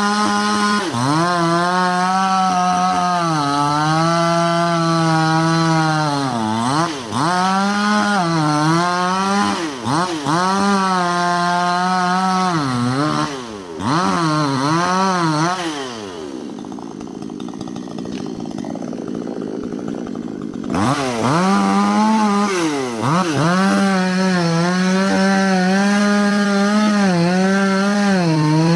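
Two-stroke chainsaw running at high revs, its pitch dipping and recovering again and again as the chain bites into a felled palm trunk. About halfway through it falls to a low idle for about five seconds, then revs back up and cuts again.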